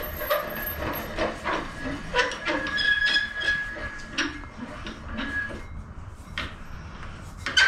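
Metal clinks and small knocks as the hand wheel on a 7.25-inch gauge steam locomotive's brake column is fitted and turned, working the brake screw and linkage. A thin squeak comes in about two seconds in and lasts a second or so.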